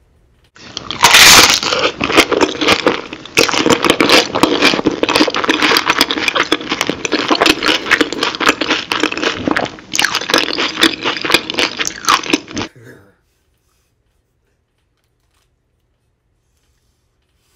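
Close-up eating sounds: crunching bites and chewing of a sandwich, with its paper wrapper crinkling. Loudest at the first bite about a second in, then a dense run of crackly crunches that cuts off suddenly.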